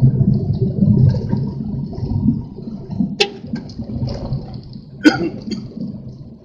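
Strong wind buffeting the microphone: a loud, gusting low rumble, with two sharp knocks about three and five seconds in.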